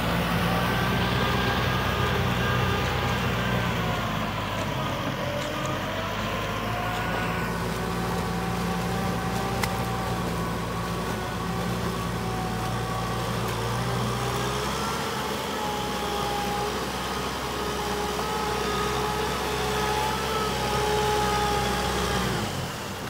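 Kubota M6040 SU tractor's diesel engine running steadily under load while it pulls a rotary tiller through flooded paddy mud. The hiss above the engine drops away about seven seconds in, and the low engine tones shift about halfway through.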